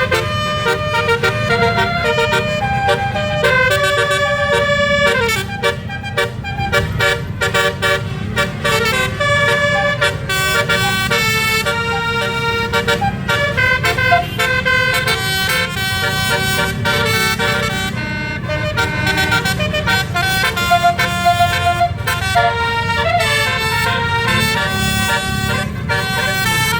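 Telolet basuri 12-note musical air horn on a tour bus playing a melody of short held notes that change pitch in quick succession, over a low rumble.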